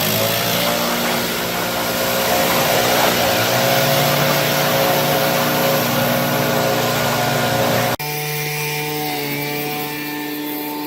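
Gas pressure washer's small engine speeding up as it comes under load, then running steadily over the loud hiss of the spray. About eight seconds in the sound cuts abruptly to a quieter, steadier engine hum with less hiss.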